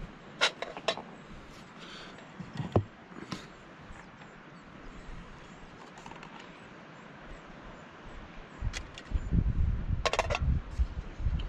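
Camping cook pot and kit being handled: scattered light clinks and taps, with a quick cluster of rattling clicks about ten seconds in. Wind buffets the microphone in the last few seconds.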